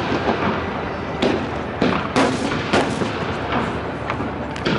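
Aerial firework shells bursting: a run of five or six sharp bangs, roughly half a second to a second apart, each trailing off in a rolling echo.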